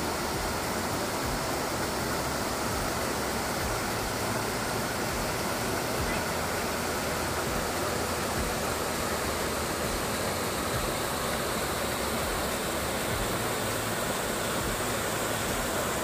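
Waterfall: a wide curtain of water pouring over a rock wall into a shallow pool, a steady, even rush of falling and splashing water.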